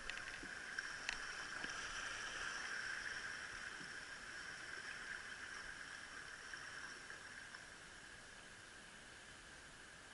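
Steady rushing of water along a dragon boat's hull as the boat coasts to a stop with paddling halted. The sound fades away over the last few seconds.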